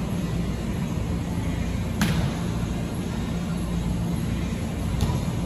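Steady low rumble of a large indoor hall, with a sharp smack of a volleyball being struck by hand about two seconds in and a fainter one near the end.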